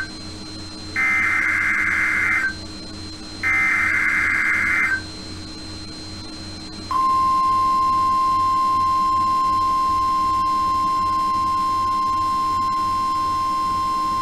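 NOAA Weather Radio Emergency Alert System signal. First come two screeching SAME digital header bursts of about a second and a half each, two seconds apart. About seven seconds in, the steady single-pitch 1050 Hz warning alarm tone starts and holds, the signal that an alert announcement is coming.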